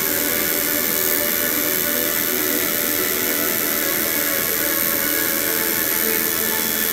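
Electric tattoo machine buzzing steadily while it needles the skin.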